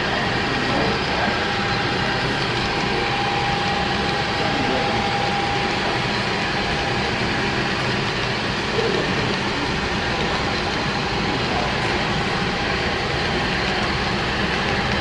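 Model freight train rolling along the layout's track: a steady, even running noise of wheels on rail and motor with a faint steady whine.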